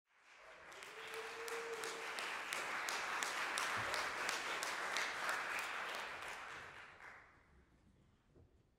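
Audience applauding, starting within the first second and dying away about seven seconds in.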